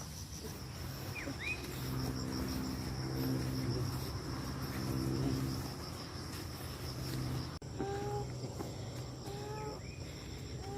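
Insects trilling steadily with a high, pulsing buzz. In the middle seconds a low steady hum swells and fades, and a few short calls sound near the end.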